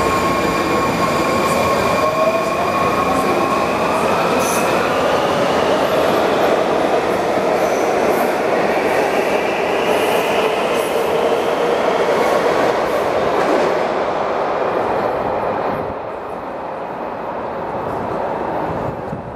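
Washington Metro train pulling out of an underground station: its motor whine rises in pitch as it gathers speed, over the running noise of wheels on rail. The noise drops away sharply about three quarters of the way through as the train leaves.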